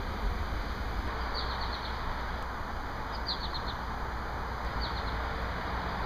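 A small bird calling three times, each call a quick run of four or five high, falling chirps, over a steady low background rumble.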